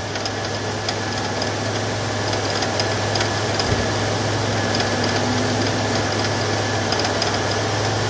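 2001 Monte Carlo SS's 3.8-litre 3800 Series II V6 idling with a knock under the hood, slowly getting louder. The knock eases when the AC is switched on and then slowly comes back. The owner can't place it and wonders whether it is the AC compressor bearing or a push rod, somewhere at the back of the engine on the passenger side.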